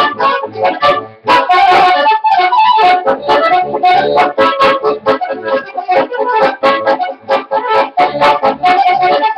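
Accordion playing a fast polka in quick, dense notes, with a brief break in the notes about a second in.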